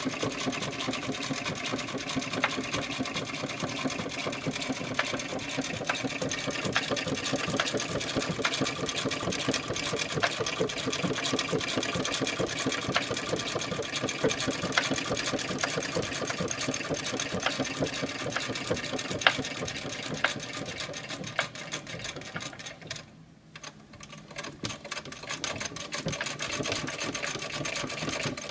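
1865 Florence sewing machine stitching, its mechanism clicking rapidly and evenly. About three-quarters of the way through it slows almost to a stop, then runs up to speed again.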